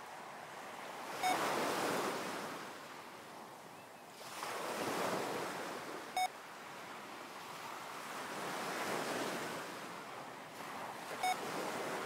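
Recorded ocean waves washing in slow swells, with a short electronic beep three times, about every five seconds. Each beep marks a switch between breathing in and breathing out, paced at six breaths a minute.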